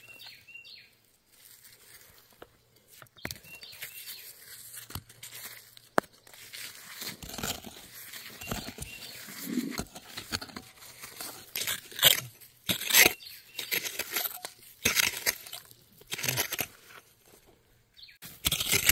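Gloved hands digging and scraping through loose dry dirt and small rocks, in irregular crunching, scraping strokes that come louder and thicker from about six seconds in.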